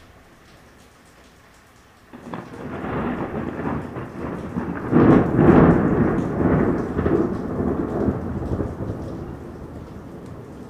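A thunderclap breaks about two seconds in, rumbling loudest a few seconds later and then slowly dying away, with rain falling.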